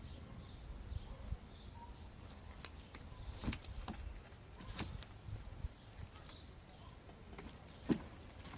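Faint bird chirps outdoors, with a few sharp clicks and knocks, the loudest just before the end.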